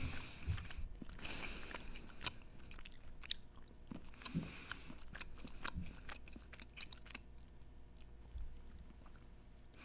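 A person chewing a chocolate bar close to a microphone: soft, irregular mouth clicks and small crunches.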